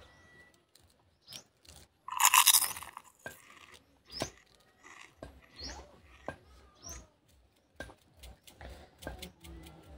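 Close-up chewing of raw green leaves: wet crunching, mouth clicks and smacks coming irregularly. A loud, brief burst about two seconds in is the loudest sound.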